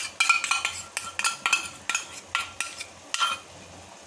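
Metal spoon clinking and scraping against a steel pot and bowl as whisked yogurt is spooned into the frying masala. A quick run of ringing clinks, about three a second, stops about three and a half seconds in.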